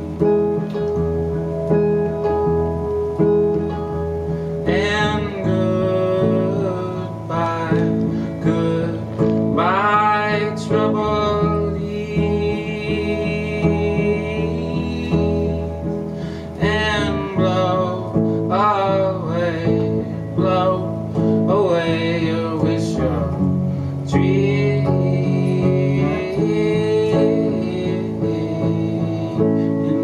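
Solo electric guitar music played live through an amplifier and effects pedals: long held notes ring underneath while bending, gliding melodic phrases come in over them every few seconds.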